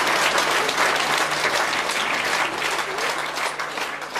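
Concert-hall audience applauding, dense clapping that slowly fades toward the end.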